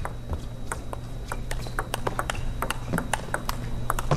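Table tennis rally: the ball clicking sharply off the bats and the table in quick succession, about five clicks a second.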